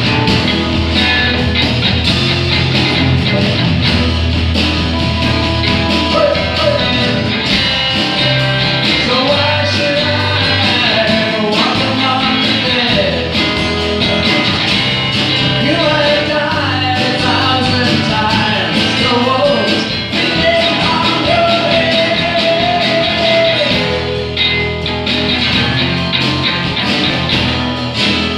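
Live rock band playing: drum kit keeping a steady beat under electric bass and electric and acoustic guitars, with a melody line bending in pitch over the top.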